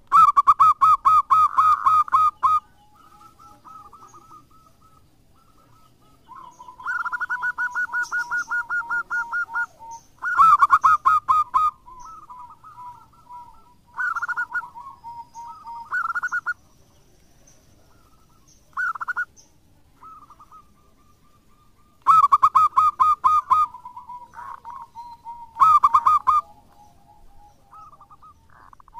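Local Indonesian zebra dove (perkutut lokal) singing, a bird in full song: repeated phrases of fast, rattling, staccato coos, with quieter cooing between them. The loudest phrases come at the start and again about twenty-two seconds in.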